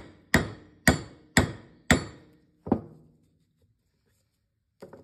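Hammer striking a metal mandrel to drive a rotary lip seal into a cast-iron PTO housing: four ringing blows about two a second, then one last blow after a short pause, as the seal goes fully home. A light knock near the end.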